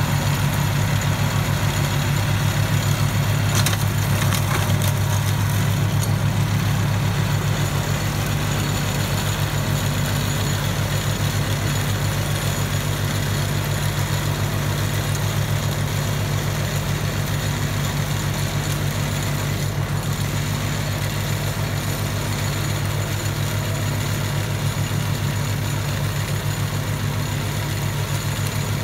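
SAME Frutteto 60 tractor's diesel engine running steadily while it drives a rear-mounted PTO rotary tiller through dry soil, its even low drone easing slightly as the tractor moves away.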